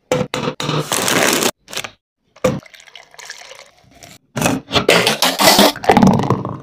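Food being prepared close to the microphone, in short separate pieces: ice cream scraped off a scoop and dropped onto chocolate pieces in a plastic blender cup, a sharp click, more scraping of ingredients into the cup, then thick milkshake pouring into a glass near the end.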